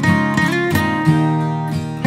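Background music led by a strummed acoustic guitar, with a run of plucked notes and chords.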